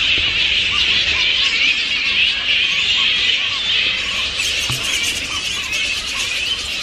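A colony of Australian fruit bats (flying foxes) squealing and chattering all at once as they take off: a steady, shrill din of many overlapping calls, their warning calls.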